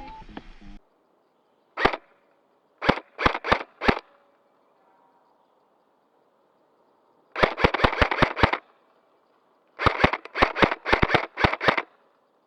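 Airsoft guns firing in short sequences: a single shot, then four shots about three a second, then two quicker strings of about seven and eight shots. Background music cuts off less than a second in.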